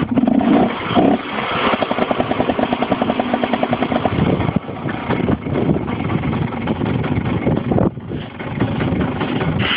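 Cagiva Mito Evo 125's single-cylinder two-stroke engine running through twin Arrow exhausts, heard from the cockpit. It pulses fast and evenly for a few seconds, and the sound drops out briefly about eight seconds in.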